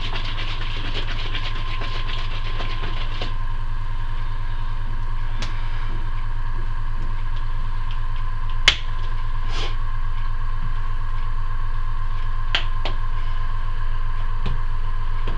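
Airbrush compressor running steadily with a fast, even pulsing hum and a faint whine, while air hisses from the airbrush for the first three seconds or so. A single sharp click a little past halfway is the loudest moment, with a few fainter clicks later.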